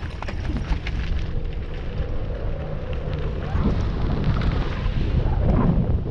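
Airflow buffeting the microphone of a camera mounted on a hang glider's wing during a running launch and lift-off: a steady low rumbling rush of wind noise.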